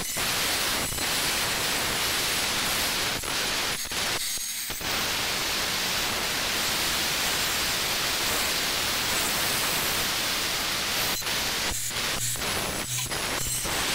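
Handheld angle grinder grinding white stone, a steady grinding noise that drops out briefly about four and a half seconds in and breaks off several times near the end as the disc is lifted and set back on the stone.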